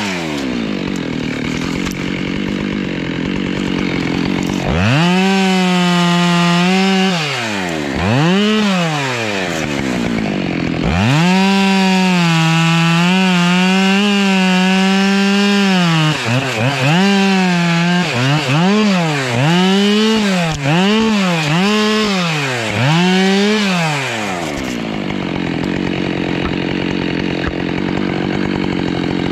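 Husqvarna two-stroke chainsaw limbing a felled tree. It idles, then runs at full throttle through the cuts in several bursts, the longest about five seconds, followed by a string of quick throttle blips. It drops back to idle near the end.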